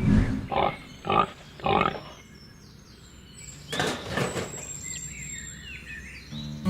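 An animal calling in four short, rough bursts about half a second apart, then once more about four seconds in, with faint high chirps behind.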